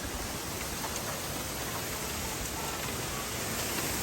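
Strong wind blowing, a steady rushing hiss with no let-up.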